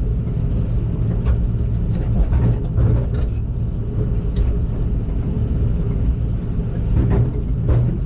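Heavy machine's engine running steadily, a low drone with a few short clicks over it.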